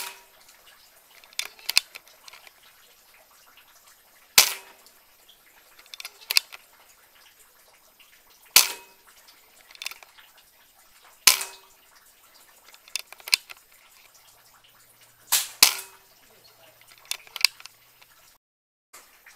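PCP air rifle firing: about five sharp shots a few seconds apart. Each shot is followed about a second and a half later by one or two lighter clicks.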